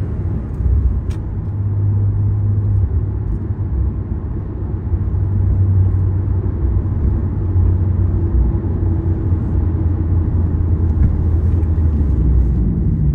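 Porsche sports car cruising, heard from inside the cabin: a steady low engine drone with road and tyre noise.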